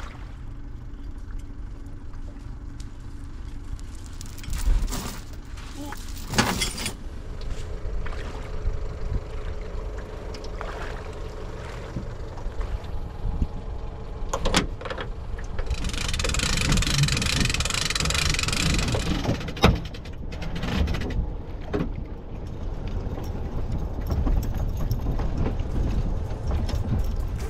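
An aluminium dinghy being retrieved onto its trailer and towed up a boat ramp: a vehicle engine runs under scattered knocks and rattles of the hull and gear. A loud hiss lasts about three seconds midway.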